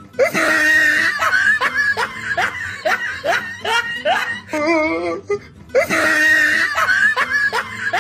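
Canned laughter sound effect: a string of quick rising laughs, about two a second, with a wavering drawn-out laugh near the middle. The same laugh loop starts over about six seconds in.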